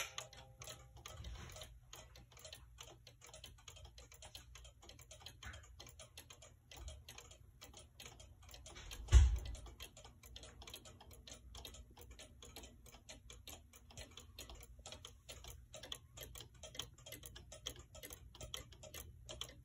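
Weight-driven Hubert Herr Black Forest cuckoo clock ticking steadily, its pendulum and escapement making faint, even clicks. A single low thump sounds about nine seconds in.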